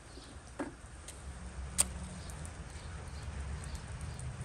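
Firewood sticks knocking against a rusty steel grill stove as they are pushed into its firebox: a dull knock just over half a second in and a sharp click a little under two seconds in, over a low steady rumble.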